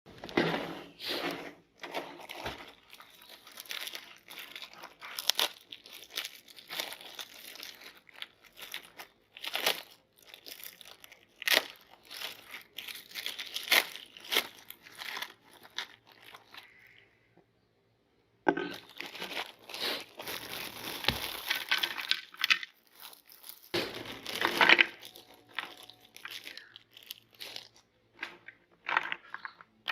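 Crunchy cookies being crushed in a meat grinder: irregular crisp crackling and crunching. The crackling stops for about a second and a half around the middle, then comes back denser before thinning to scattered clicks.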